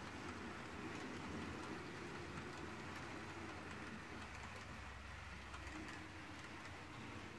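H0-scale model train running along the layout track: a steady rattle of wheels on rail and motor hum, with faint scattered clicks.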